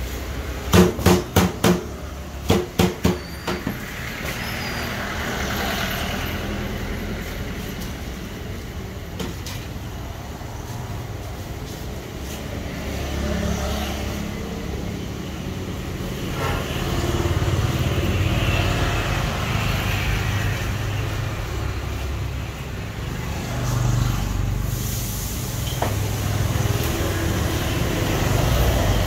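A knife chopping on a wooden cutting board: two quick runs of about four sharp knocks each in the first few seconds. A steady low rumble runs underneath.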